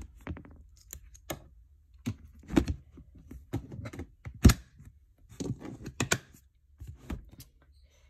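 Clear plastic storage tubs being handled and shifted: a string of irregular clicks, knocks and light scrapes, with one sharper knock about four and a half seconds in.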